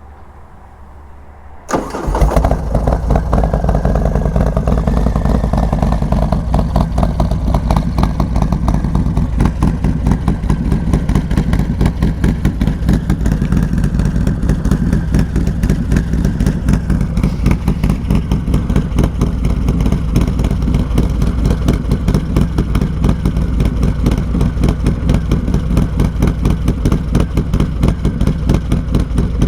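A 2019 Harley-Davidson Softail Fat Bob's 128-cubic-inch V-twin starting up about two seconds in, then idling steadily with fast, even pulses. It settles a little in the first few seconds after it catches.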